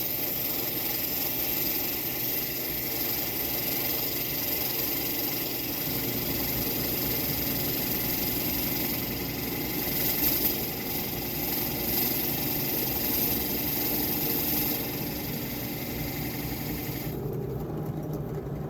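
Steady machine running noise with an even hiss and a low hum. Its higher hiss cuts off suddenly near the end, leaving a quieter hum.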